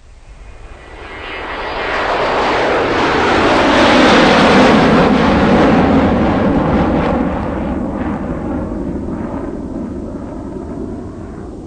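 Something large and noisy passing close by, most likely a vehicle: a broad rushing noise that builds to a peak about four seconds in, drops in pitch as it passes, and fades slowly away.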